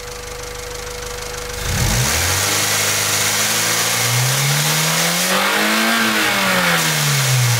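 Honda B16A2 1.6-litre DOHC VTEC four-cylinder idling, then revved in first gear with the driven front wheels lifted: the revs climb steadily for about four seconds, VTEC engages near the top at about 5500 rpm and the engine note turns harder and brighter, then the revs fall away. Off VTEC the hot engine has a diesel-like clatter that the owner says disappears completely once VTEC engages.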